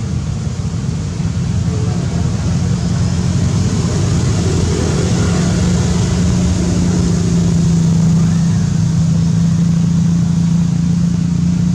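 An engine running steadily, a low hum that holds one pitch.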